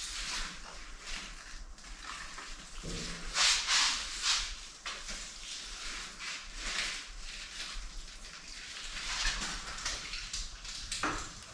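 Water pouring from a watering can onto the soil of potted caladiums, in several separate pours with short pauses between as it moves from pot to pot.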